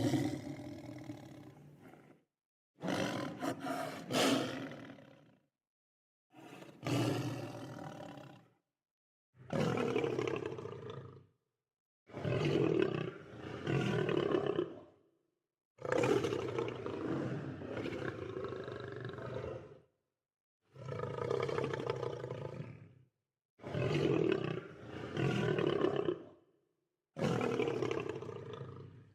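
Lion roaring in about nine separate deep calls, each lasting two to four seconds, with gaps of dead silence between them.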